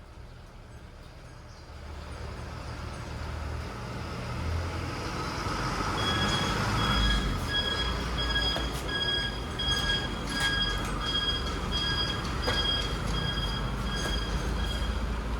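Low rumble of a large vehicle growing louder, joined about six seconds in by a steady repeating beep, about one and a half beeps a second.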